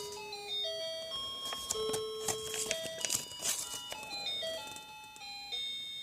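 Music: a simple chiming melody of held notes, with a cluster of sharp clicks or percussive hits near the middle.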